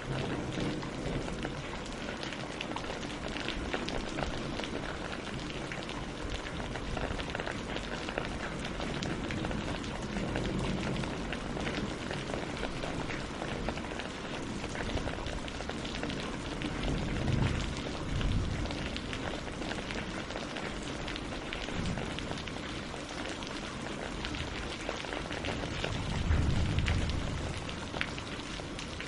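Steady rain falling on water and leaves: a dense, even patter of drops. A few low swells rise and fade, the strongest about halfway through and near the end.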